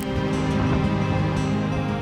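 Background music with long held notes.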